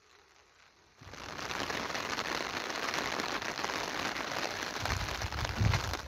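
Thunderstorm: a sudden rush of noise starts about a second in and runs for about five seconds, with a low rumble building near the end before it dies away.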